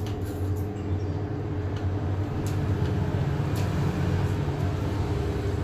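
Steady low mechanical hum with a few faint clicks.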